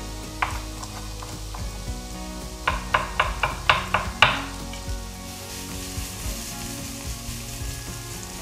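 Chef's knife chopping zucchini on a wooden cutting board: a single chop early, then a quick run of about seven chops a little before halfway through. Underneath, onion and carrot sizzle steadily as they fry in a pan.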